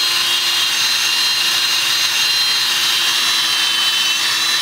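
Drill spinning a foam buffing pad at high speed, working automotive buffing compound into the clear coat of a wooden longboard deck: a steady, high-pitched motor whine over an even hiss.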